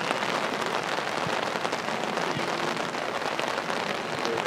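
Steady rain pattering: an even hiss dotted with many small drop ticks.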